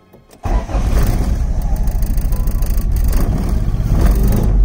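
Honda H22 four-cylinder engine in a Civic starting up about half a second in and running. The owner suspects a misfire. He later traces it to the spark plug wires for cylinders two and three being swapped.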